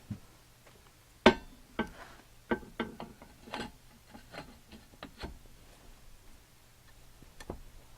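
Metal parts of a drill grinder's motor knocking and clinking as they are handled and fitted together during reassembly: about eight separate sharp knocks, some ringing briefly, the loudest a little over a second in.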